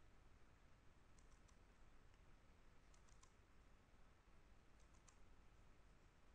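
Near silence with faint computer mouse clicks: three quick groups of two or three clicks each, spaced roughly two seconds apart.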